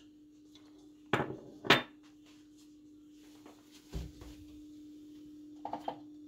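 Kitchen utensils and containers being handled while a remedy is put together: two sharp knocks about a second in, a duller thud midway, and a few light clicks near the end, over a steady low hum.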